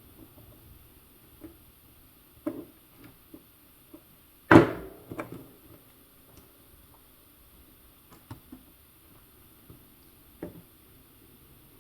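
Scattered clicks and knocks from handling small RC track parts and tools on a workbench, with one loud knock about four and a half seconds in followed by a few lighter taps.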